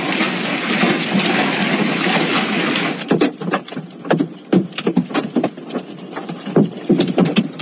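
Heavy hail falling: a dense steady hiss of hail and rain, changing about three seconds in to a fast, irregular clatter of separate hailstone impacts.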